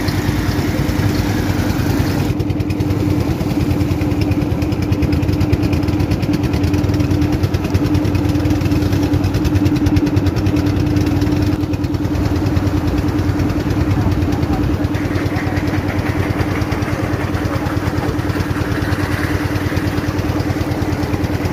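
A small engine running steadily at an even speed, with a constant hum and no change in pitch.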